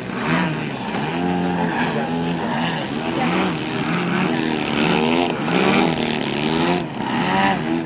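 Engine of a radio-controlled aerobatic model airplane running, its pitch rising and falling over and over as the plane is flown through aerobatic moves.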